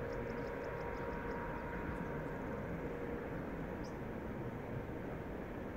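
Airbus A380's jet engines at taxi power, heard from a distance as a steady rumble with a faint whine that fades about halfway through. A fast run of high chirps plays over it for the first second or so, and a single short chirp comes near the end.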